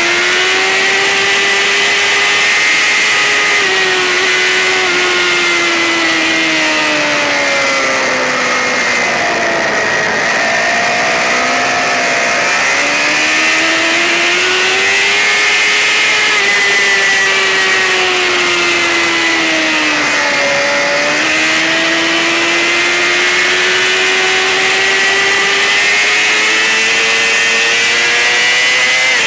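Racing sportbike engine running hard at high revs, its pitch sinking slowly to a low point about ten seconds in and again about twenty seconds in, then climbing back as the throttle opens, over a steady rush of wind.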